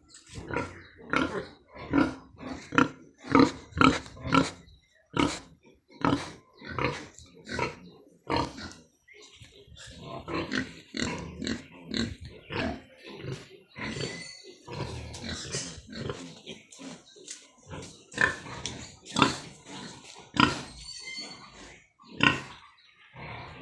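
Domestic pigs calling over and over: short separate calls about two a second at first, then a denser run of higher-pitched calls in the second half.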